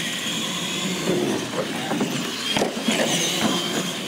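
Radio-controlled monster trucks driving across a concrete floor, their motors and gears giving a steady high whine over tyre and chassis clatter, with a sharp knock about two and a half seconds in.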